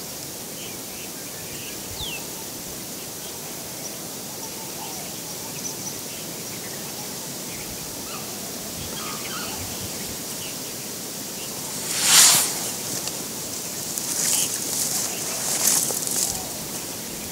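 Outdoor bush ambience: a steady hiss with faint, scattered bird chirps. A loud rustle comes about twelve seconds in, and more rustling follows over the next few seconds.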